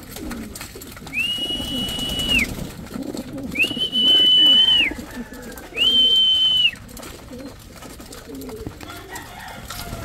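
Racing pigeons cooing in a loft. Three long, steady, high whistle-like tones, each lasting about a second, sound over them in the first seven seconds and are the loudest sound.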